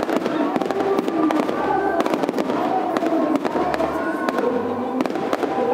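Fireworks finale barrage: many shells bursting and crackling in rapid succession with no let-up.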